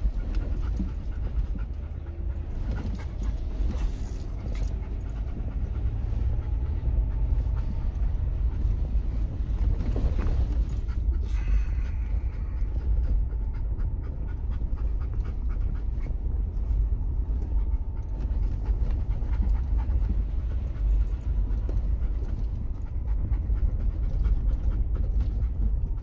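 Low, steady rumble of an off-road vehicle crawling over a rough, rutted dirt-and-snow trail, heard from inside the cab, with a short jolt about ten seconds in.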